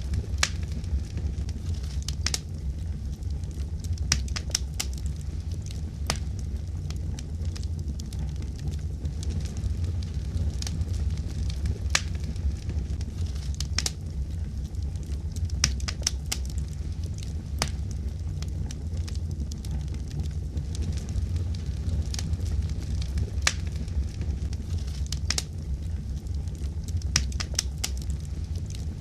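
Fire crackling: a steady low rumble with irregular sharp pops and snaps, several of them louder than the rest.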